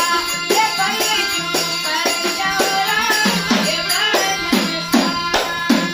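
Rajasthani folk music: a wavering melody line over steady drum strokes and jingling percussion, about three beats a second, with the drum hits sounding deeper from about halfway.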